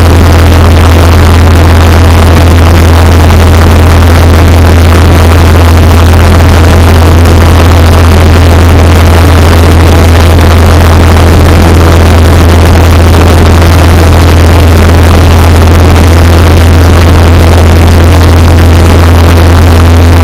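Aircraft engine drone heard from inside the cabin: a loud, steady, deep hum with a constant hiss above it.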